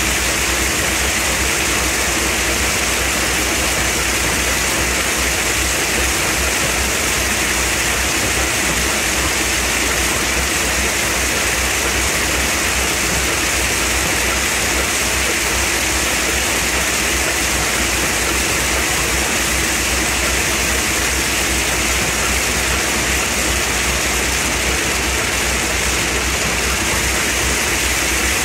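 Shelled corn pouring steadily out of a grain bin's bottom gate and sliding down a chute of plastic buckets into an auger hopper: a constant, loud rushing hiss. Underneath it runs a low steady hum from the auger's electric motor.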